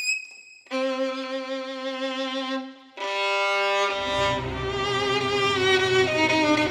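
Background music: a bowed violin plays slow, long held notes, one after another, with a short gap before the first. About four seconds in, a fuller, low string accompaniment joins it.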